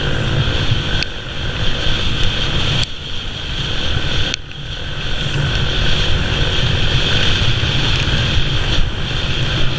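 Quad bike (ATV) engine running under way across rough ground, with heavy wind buffeting on the microphone; the engine sound dips briefly twice, about three and four and a half seconds in.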